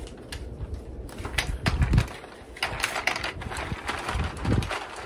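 Hard plastic toy blaster being handled: a quick run of sharp clicks and rattles as its parts are moved and snapped into place, with a few dull thumps.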